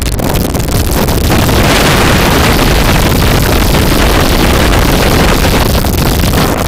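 Strong wind buffeting the microphone, a loud, steady rushing with a heavy low rumble.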